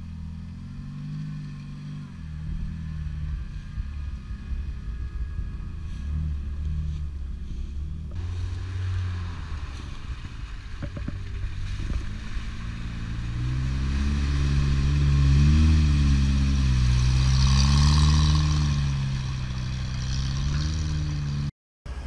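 4x4 off-roader's engine labouring through mud. Its revs rise and fall repeatedly, louder in the second half as it works through the muddy track. The sound cuts out briefly near the end.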